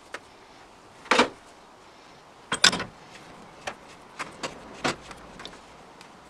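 Bahco 176 plastic pipe cutter being worked by hand, giving a few sharp metallic snaps and clicks. Two louder snaps about a second and two and a half seconds in are followed by several lighter ticks.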